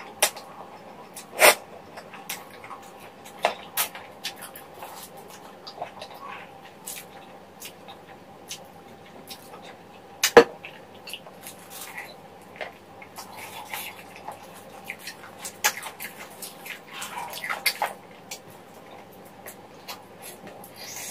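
Close-miked eating sounds: sucking and chewing on braised chicken feet in a sticky spicy sauce, with irregular wet smacks and sharp lip clicks, the loudest clicks about a second and a half in and about ten seconds in.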